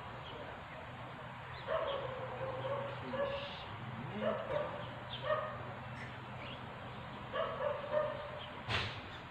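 A dog yipping and whining in short repeated calls, some held for about half a second, over a steady low hum, with one sharp click near the end.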